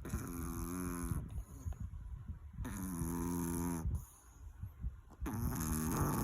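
Sleeping chihuahua snoring: three long, pitched snores about two and a half seconds apart.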